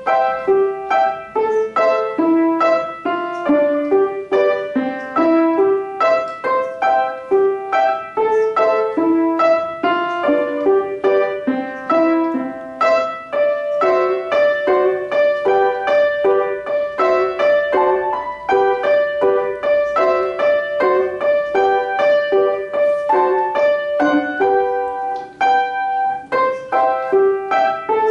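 Solo piano playing a brisk piece in a steady stream of quick, even notes. It starts right after a pause, so this is the opening of the piece.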